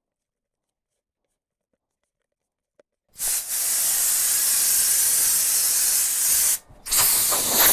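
Compressed-air blow nozzle blasting, blowing debris off a workbench: a loud steady hiss starting about three seconds in and lasting about three and a half seconds, then, after a brief break, a second shorter blast.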